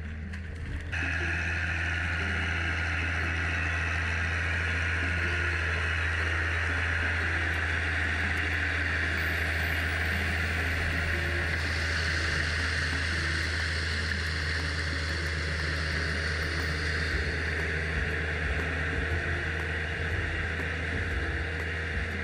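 Tracked tractor's diesel engine running steadily as it works a flooded, muddy paddy field, with a steady hiss coming in over it about a second in.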